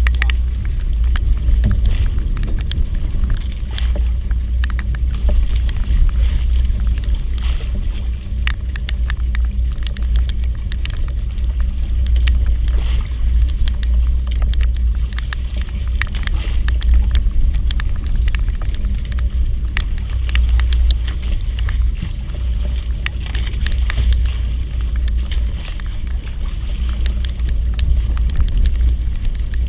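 A boat engine running steadily under way, with wind on the microphone and many scattered ticks and crackles over it.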